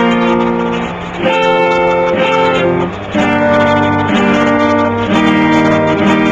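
Acoustic guitar strumming chords, changing chord about once a second, as an instrumental bridge between songs in a medley.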